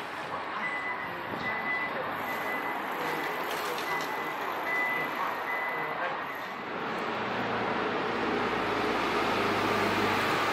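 A high electronic warning beeper repeating steadily over street traffic noise, stopping about six seconds in. A low steady hum comes up after it.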